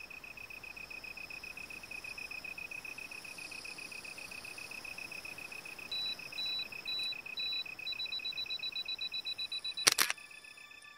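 Insects in a field chirping: one keeps up a steady train of rapid, even high-pitched pulses, and a second, higher-pitched insect joins about six seconds in, first in short bursts and then continuously. A sharp click sounds about ten seconds in.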